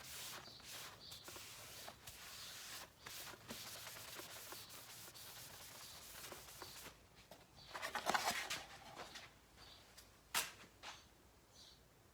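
Sandpaper being rubbed by hand over a clear-coated motorcycle side cover: short, irregular scratchy strokes, with a louder stretch of rubbing about eight seconds in and a sharp click a little after ten seconds. The 600-grit paper is levelling orange peel out of the clear coat.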